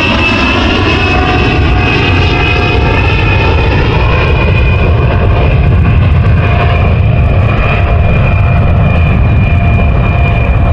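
Loud, steady aircraft-like engine drone over a heavy low rumble, its pitch sinking slowly.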